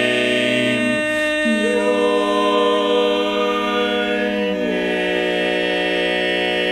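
Barbershop quartet singing a cappella, holding long sustained four-part chords that change about a second and a half in and again near four and a half seconds.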